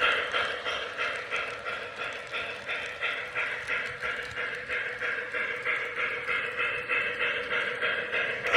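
Lionel LionChief 0-8-0 O gauge model steam locomotive running, its onboard sound system playing steady steam chuffing at about four chuffs a second. Louder at first, dipping in the middle and growing louder again near the end.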